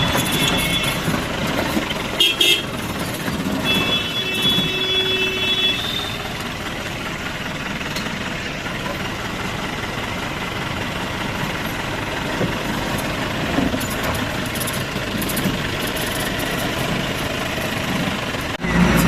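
Jeep running over a rough off-road hill track, with a steady rumble and rattle of the ride, while a vehicle horn toots three times in the first six seconds, the last toot the longest.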